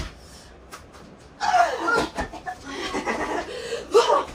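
Women's breathy vocal sounds, short exclamations and laughter rather than words, in two bursts, with a few short sharp knocks.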